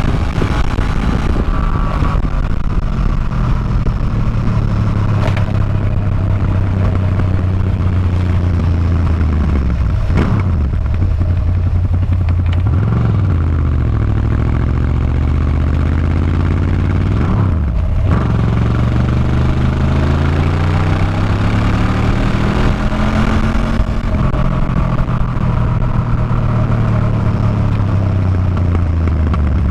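Motorcycle engine running on the road, its pitch rising and falling with the throttle. There are a few brief dips near the middle as it shifts gear, then a long climb in pitch as it pulls away again.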